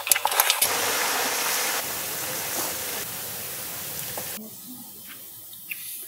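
Wet squelching clicks as hands mix spice-marinated quail. A steady hiss follows and cuts off abruptly about four and a half seconds in.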